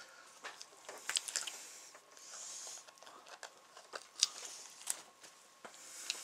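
Meat being cut and scraped away from inside a walleye skin at the gill plates: scattered crunchy clicks, with a short scraping hiss a little over two seconds in.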